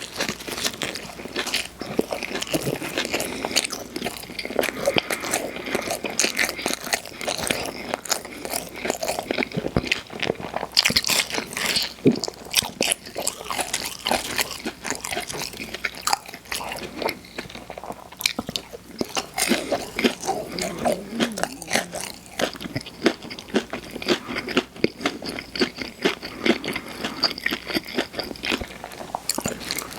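Mouth sounds of eating Burger King fast food: continuous chewing with crunchy bites, a dense run of irregular crackling clicks.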